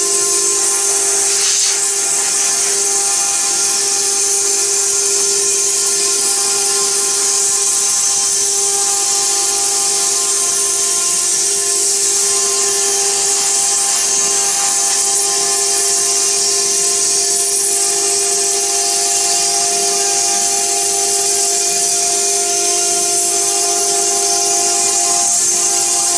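Stone CNC router's spindle running at a steady high whine while its bit engraves a wet stone tombstone slab under water coolant, with a continuous hiss of cutting.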